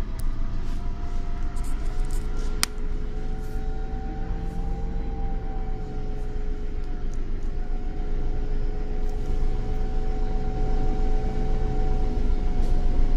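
Irisbus Cityclass Cursor CNG city bus with its Iveco Cursor 8 natural-gas engine idling: a steady low rumble under a steady two-note whine, with one sharp click about two and a half seconds in.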